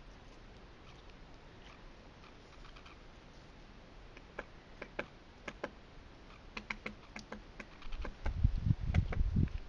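Woodpecker tapping and pecking at tree bark: sharp dry taps about every half second, then a quick run of them. From about eight seconds in, low thumping rumbles of wind or handling on the microphone are louder than the taps.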